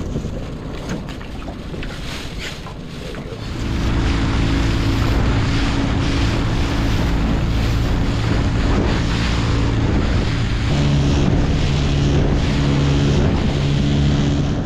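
Wind and water noise, then about three and a half seconds in a skiff's motor comes up to speed and runs steadily under way, with water rushing past the hull and wind buffeting the microphone. The engine note shifts a little past ten seconds in.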